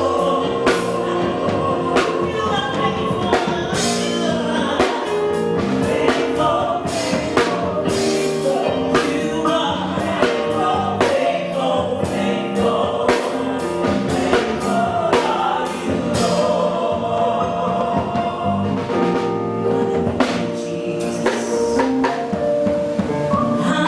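Live gospel music: a band with drum kit playing and singers, with choir-like voices.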